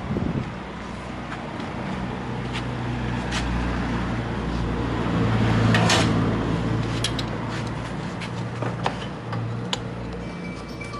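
A motor vehicle engine runs with a steady low hum, growing loudest about six seconds in, with a few light clicks and knocks scattered through.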